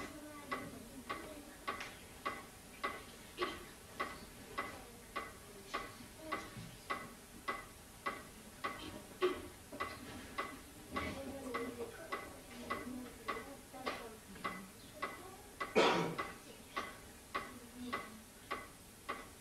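Steady, even ticking at just under two ticks a second, clock-like, with one louder knock about three-quarters of the way through.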